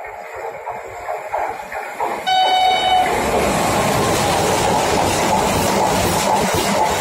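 Renfe passenger train sounding its horn in one short blast about two seconds in, as it reaches the platform. It then passes at speed with loud, steady rushing wheel and rail noise.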